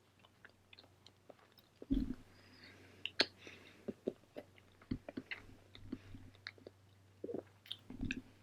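Close-miked chewing of food: a run of soft, wet mouth clicks and smacks, with a couple of heavier low thumps about two seconds in and near the end.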